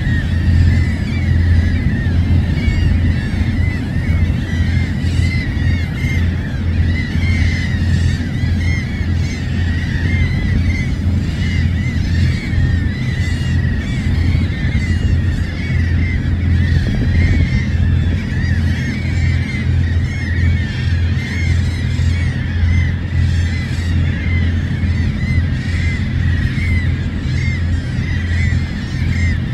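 A flock of seabirds calling constantly, with short, overlapping cries. Under them runs a steady low rumble.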